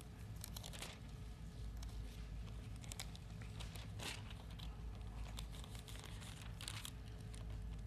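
Thin Bible pages being turned by hand: soft paper rustles with a few separate page flips, the clearest a little under a second in, about four seconds in and near seven seconds.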